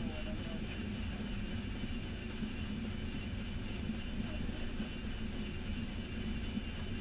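Steady flight-deck noise of an Airbus A320 during landing: a constant rush of air and engine hum, with a few steady high-pitched tones over it.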